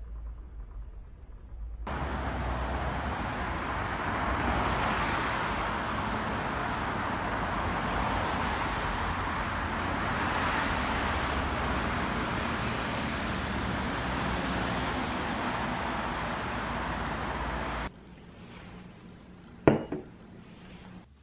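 Steady road-traffic noise from a city street for about sixteen seconds. It cuts off, and near the end a glass mixing glass is set down on a bar counter with a single sharp clink.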